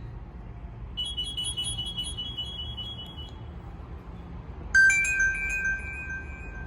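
Two short electronic tones from a Nokia 6500 slide phone's speaker: a faint high chime with a quick twinkle from about a second in, then a louder tone that starts suddenly near five seconds in, holds a steady pitch and fades, over a low hiss.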